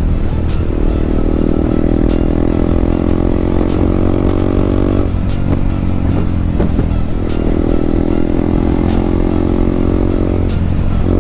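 Yamaha MT15's single-cylinder engine running through a loud aftermarket exhaust while riding, held at steady revs. The throttle comes off about five seconds in, the engine pulls again a couple of seconds later, and it drops off once more near the end.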